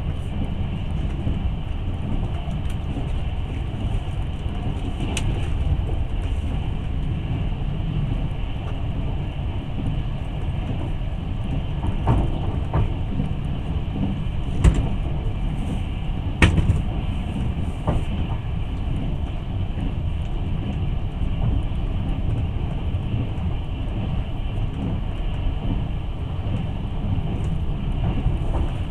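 Steady low rumble of a moving passenger train heard from inside the carriage, with a handful of sharp clicks and knocks scattered through it.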